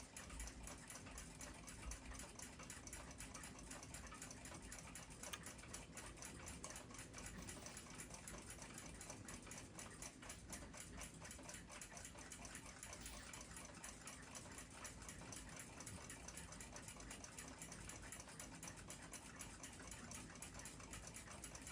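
Near silence with a clock ticking faintly and quickly.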